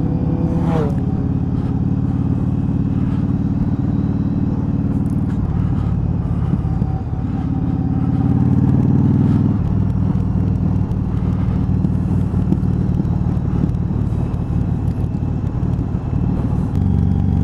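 Cruiser motorcycle engine running at a steady road speed, heard from the rider's seat with wind noise. Its note steps in pitch a few times, about five and ten seconds in, as the throttle or gear changes.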